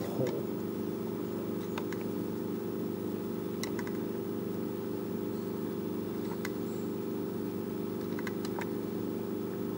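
A steady low hum, with a few light clicks of a metal pick and pliers against the plastic recoil starter housing of a string trimmer.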